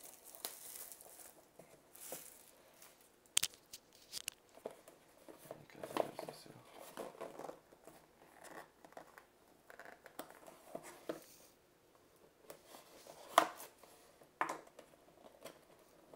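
Hands tearing and crinkling the plastic seal wrap on a small cardboard box, with a few sharp clicks scattered through.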